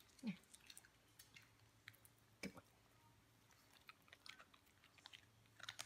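Faint, sparse chewing and lip-smacking from small shih tzu dogs eating, with a short squeak just after the start and a few soft clicks.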